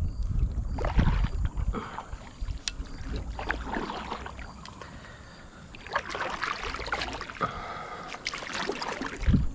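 Kayak paddle strokes dipping into the water with irregular splashes, with a few low thumps.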